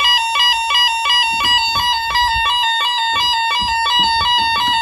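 Intruder alarm sounding a tamper alarm, set off by pulling the bell box cover: a loud electronic two-tone warble that switches back and forth between two pitches a few times a second.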